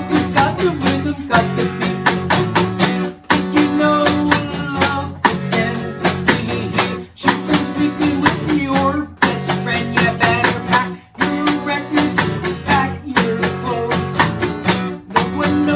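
Guitar music with a steady strummed rhythm.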